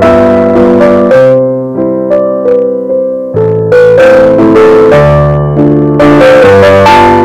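Background piano music: a gentle melody of single notes over held chords. About a second and a half in it thins out and softens for a couple of seconds, then comes back fuller.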